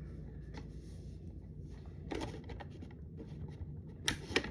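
Light handling and rustling over a low steady hum, then two sharp clicks in quick succession near the end.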